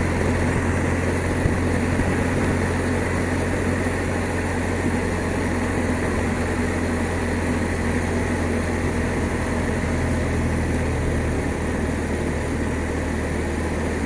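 BMW R1200RT's boxer-twin engine running steadily while riding, under a steady rush of wind and wet-road noise. The engine note changes slightly about ten seconds in.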